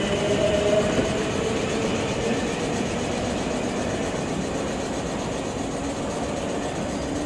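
Electric multiple unit train moving off: a faint motor whine rises slightly in pitch and fades after about a second over steady wheel-and-track rumble that slowly grows quieter.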